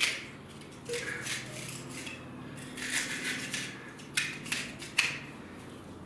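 Utility knife cutting and scraping through wet tile adhesive and embedded plaster mesh to clear the opening of a socket box: a series of short scrapes and sharp clicks of the blade.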